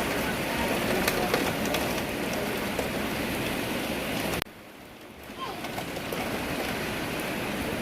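Steady rain falling, with the sharp patter of individual drops striking surfaces. About four and a half seconds in it cuts suddenly much quieter, then swells back to a steady rain over the next second or so.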